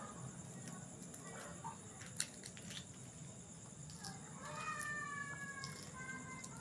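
Boiled quail eggs being peeled by hand, with a few small sharp clicks of cracking shell. About halfway through, a drawn-out animal call, slightly falling in pitch, is the loudest sound.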